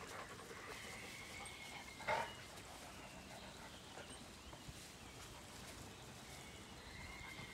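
A dog gives a single short, sharp cry about two seconds in, during rough play-fighting between dogs.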